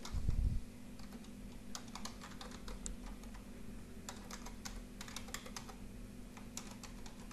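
Typing on a computer keyboard: irregular runs of key clicks, over a steady low hum. A short low thump right at the start is the loudest sound.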